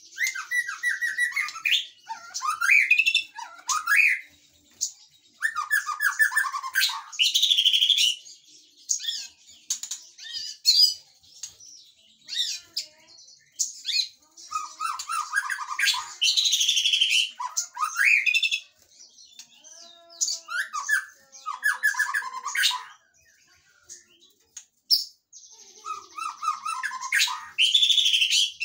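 White-rumped shama singing: a long string of varied phrases, clear whistled notes and quick runs alternating with harsh, scratchy bursts, with short pauses between phrases.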